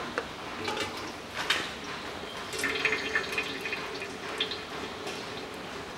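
Used engine oil dripping and trickling from a Mazda 3's spin-on oil filter and its mount as the filter is unscrewed by hand, with scattered light clicks and knocks.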